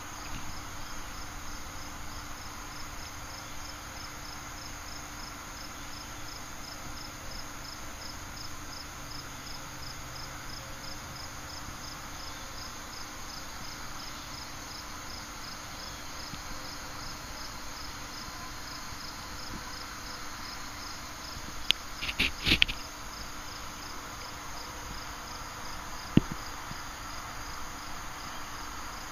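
Insect chirping outdoors: a high, even chirp repeating about twice a second over a faint steady hiss. A brief cluster of clicks comes about three-quarters of the way through.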